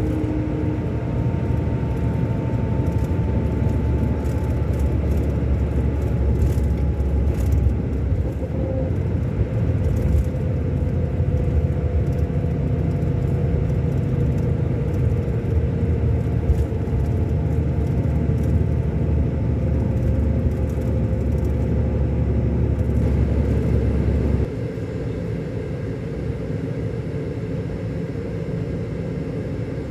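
Scania K400 coach's inline-six diesel engine running, a steady deep rumble with a faint whine above it that slowly falls in pitch. About three-quarters of the way through, the low rumble drops suddenly and the engine runs on more quietly.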